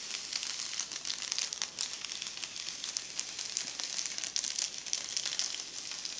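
Clear adhesive Mylar hotfix transfer film being peeled slowly off rhinestones and fabric: a continuous fine crinkling and crackling of thin plastic coming unstuck.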